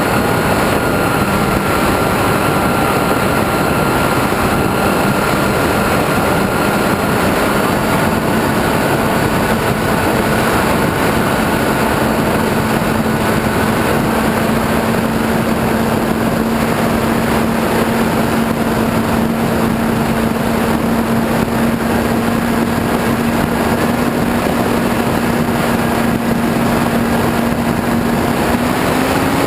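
Model airplane's motor and propeller droning steadily at cruise, under heavy wind rush over the onboard camera's microphone; the pitch climbs a little near the end as the throttle comes up.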